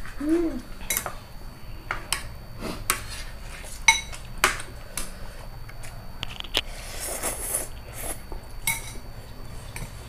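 Metal forks and spoons clinking and scraping against ceramic plates and a bowl in irregular taps as people eat noodles, with a slurp of noodles about seven seconds in.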